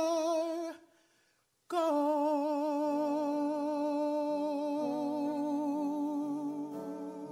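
A solo voice holds a long vocal note with a wavering vibrato and breaks off under a second in. After a second of silence it takes up another long vibrato note, and sustained accompaniment chords come in beneath it about three seconds in.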